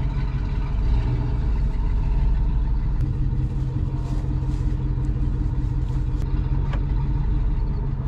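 Truck engine running steadily, with a few faint ticks.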